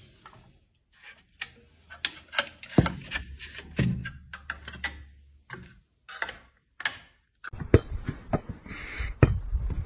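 Metal plastering trowels clacking and scraping on a tile floor under bare feet: a string of sharp, irregular clicks and knocks. About seven and a half seconds in, a steady hissing noise with a few knocks takes over.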